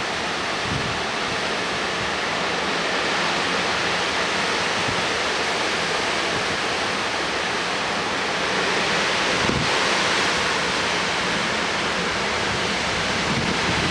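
Severe thunderstorm winds rushing steadily, with a stronger gust swelling about nine seconds in.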